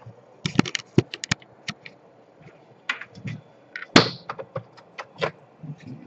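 Scattered sharp clicks and taps of plastic, with one louder knock about four seconds in, from handling and turning over an opened laptop's plastic case during a power jack repair.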